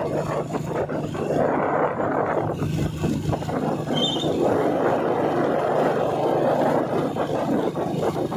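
Street traffic noise: a steady, dense rumble of vehicles, with a brief high-pitched chirp about four seconds in.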